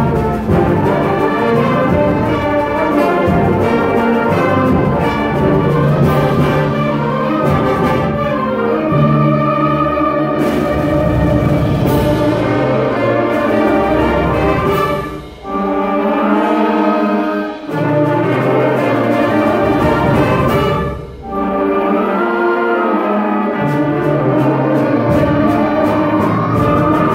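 Student concert band playing, a full wind ensemble with brass. The low parts drop out briefly in the middle, with short breaks about 15, 18 and 21 seconds in, while the higher instruments carry on.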